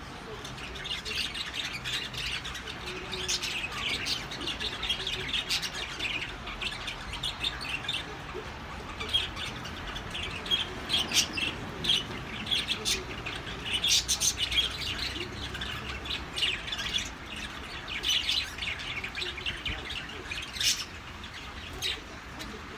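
Small birds chirping and twittering in rapid, repeated short calls, busiest in the second half.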